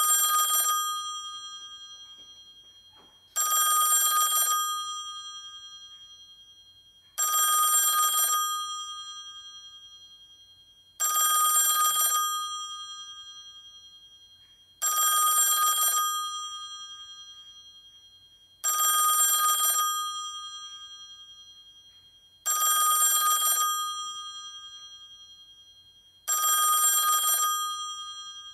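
A bell ringing in repeated bursts, each loud for about a second and then fading slowly, starting again roughly every four seconds.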